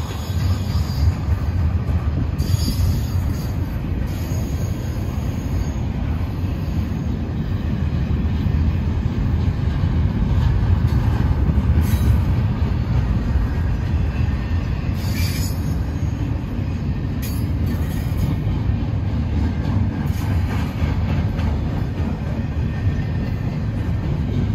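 Double-stack intermodal well cars rolling past on steel rails: a steady, loud low rumble of wheels and cars, with a few brief high-pitched wheel squeals.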